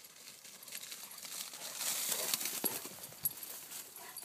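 Irish water spaniels bounding through grass: rustling swishes and soft paw thuds that swell to their loudest about halfway through, then fade.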